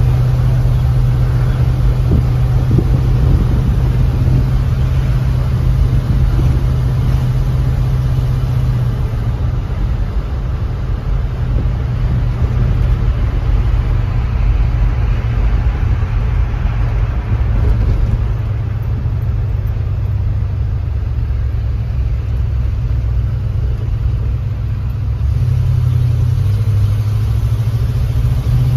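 1979 pickup truck's engine running while driving, heard from inside the cab with a steady low hum and road noise. The engine eases back about a third of the way in and pulls harder again near the end.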